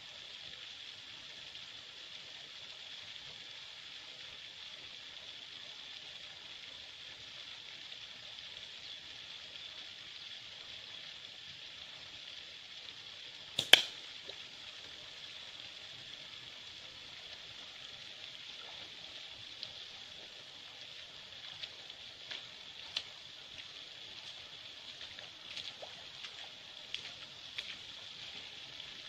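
Forest-stream ambience with a steady high-pitched drone of insects. One sharp crack about halfway through, from a slingshot shot. Light crunching footsteps on stream stones near the end.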